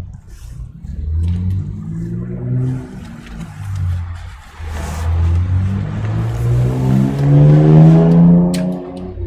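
A motor running up, its pitch rising over several seconds and loudest near the end.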